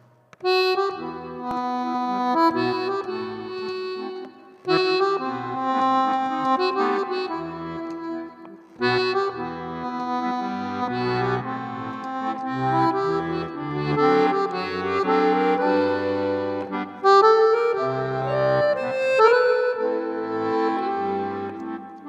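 Instrumental background music: a tune of held, reedy notes and chords in short phrases that start afresh every few seconds.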